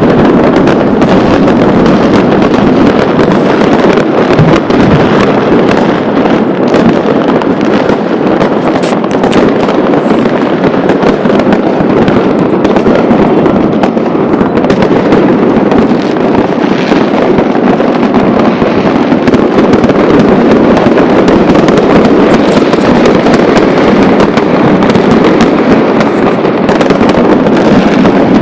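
Fireworks going off nonstop: countless overlapping bangs and crackles that merge into one continuous, very loud wall of sound with no pause.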